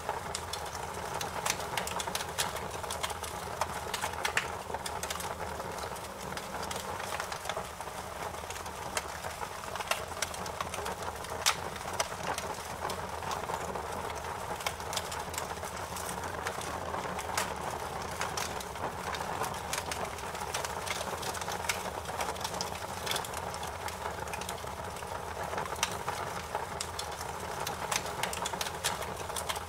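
Wood fire crackling, with frequent irregular sharp pops and snaps over a steady soft hiss.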